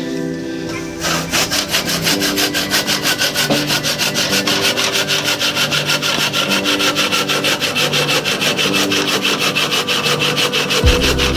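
Fast, even, rhythmic rasping or scraping strokes over a faint background tune.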